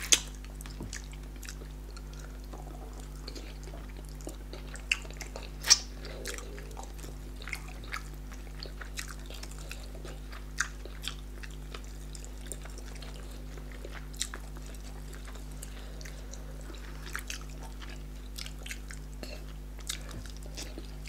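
Eating sounds of two people eating fufu and fish pepper soup by hand: wet chewing, lip smacks and sharp mouth clicks, scattered unevenly, the loudest about six seconds in, over a steady low hum.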